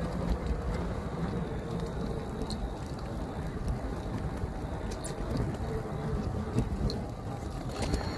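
Electric bike riding on rough off-road ground: a steady low rush of wind on the microphone and tyre rumble, with a faint steady whine and a few small clicks.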